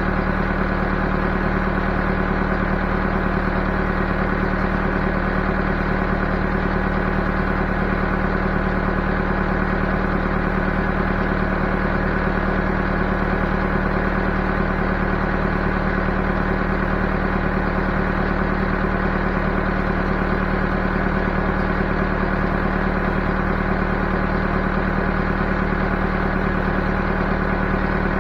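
Backhoe engine running steadily at constant speed, an even drone with no change in pitch or level.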